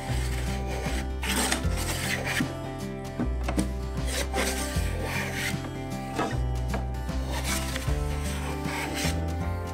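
Small hand plane being pushed in repeated strokes along a wooden strip, each stroke a rasping shave of the blade cutting a shaving, about one a second. Background music with steady bass notes plays underneath.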